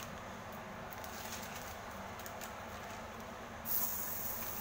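Burger patty laid on a hot flat pan, breaking into a sudden sizzle about three and a half seconds in that keeps going.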